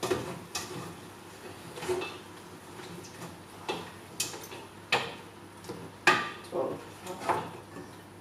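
A spoon stirring bolognese in a stainless steel stockpot, knocking and scraping against the pot's sides in irregular clinks, the loudest about six seconds in.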